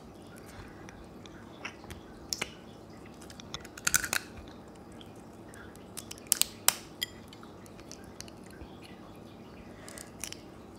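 Eating crab by hand: the shell of a crab cooked in coconut milk cracking and snapping as it is picked apart, with chewing. A few sharp cracks come in clusters, loudest about 4 seconds and 6.5 seconds in.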